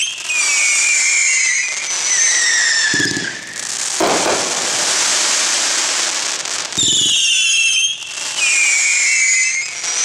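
Four Seasons 'El Toro' firework firing shots with whistling tails: a low thump at each launch, then falling whistles of a second or so each, several in a row and overlapping. A steady hiss fills the middle few seconds.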